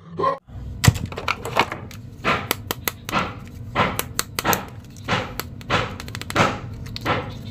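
Hard plastic action figures being handled and knocked together: irregular clicks and taps, with brief plastic rustles in between.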